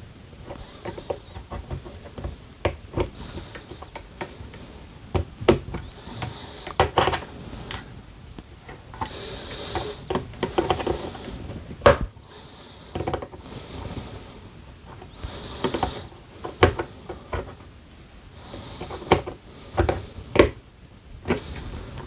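Small plastic and metal parts of an RC car's steering assembly being handled and fitted by hand with tools: irregular clicks and taps with short scraping sounds.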